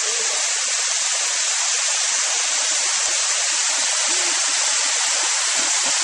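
Spring-fed waterfall cascading down a rock face into the river: a steady, even rush of falling water.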